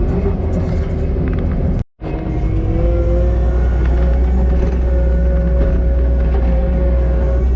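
Kubota SVL90-2 compact track loader's diesel engine running steadily with a low rumble while working a Harley power rake through topsoil. The sound drops out for a moment about two seconds in, then the engine note comes back a little higher and holds steady.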